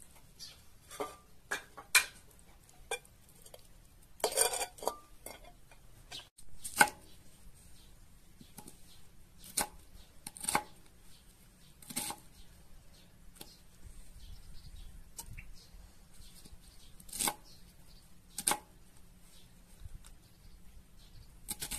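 Irregular sharp knocks and clinks of kitchen utensils against a metal cooking pot as abgoosht ingredients are put in and mixed, about a dozen strokes spaced a second or two apart. About four seconds in comes a short rattling clatter.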